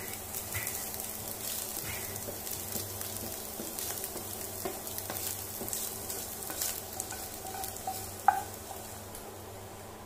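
Scrambled egg sizzling in a nonstick frying pan while a wooden spatula stirs and scrapes it across the pan. About eight seconds in there is a single sharp knock on the pan.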